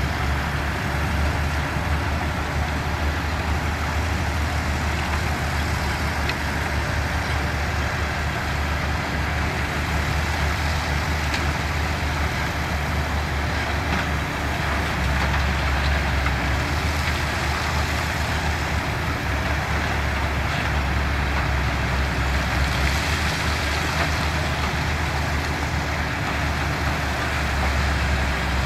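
Diesel engines of heavy earthmoving machinery running steadily, with a deep, constant low drone and engine noise, and no distinct impacts or changes in pace.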